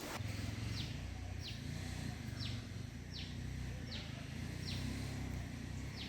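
A bird calling over and over, each call a short high note falling in pitch, repeated a little more than once a second, over a low steady hum.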